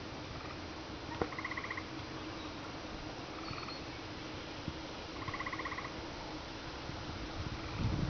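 Frog calling outdoors: short buzzy pulsed trills, each under a second long, repeated about every four seconds over a faint steady low hum. Near the end, loud low rumbling starts.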